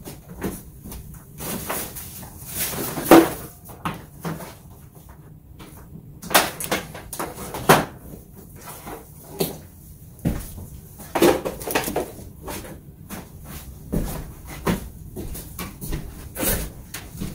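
Irregular handling noises: a scatter of knocks, clicks and rustles as things are moved about, the loudest knocks about three seconds in and just under eight seconds in.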